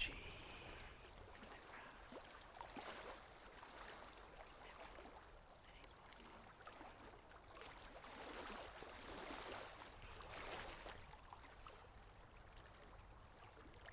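Faint, water-themed ambient track: a soft, stream-like trickle and hiss that swells and fades gently twice.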